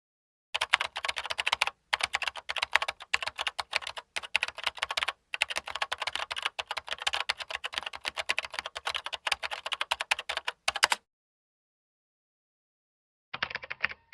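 Fast typing on a computer keyboard: rapid, continuous key clicks with two brief breaks, stopping about eleven seconds in, then a short run of keystrokes again near the end.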